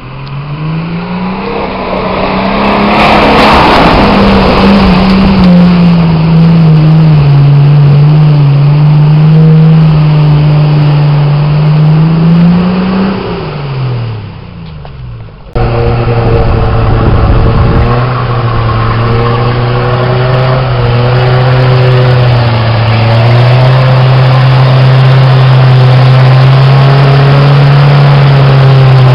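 Off-road 4x4 engines working under load through mud and deep water. One engine revs up, holds, then rises briefly again. After a sudden cut about halfway, another engine runs at a steadier, lower pitch with small revs.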